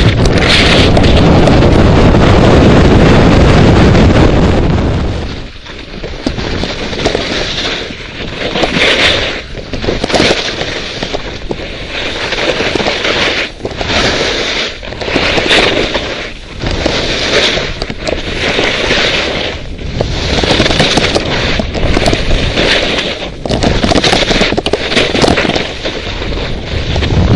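Wind buffets the microphone for the first few seconds. Then skis scrape and hiss across chopped snow in a rhythm of turns, about one scrape every one and a half to two seconds.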